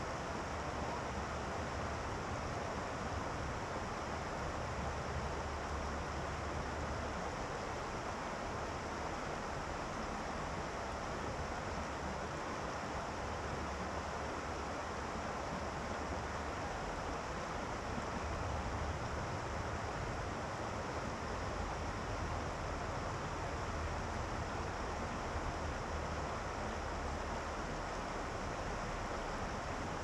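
Shallow river water running over and around rocks, a steady rushing hiss. Underneath it is a low rumble that comes and goes in stretches of several seconds.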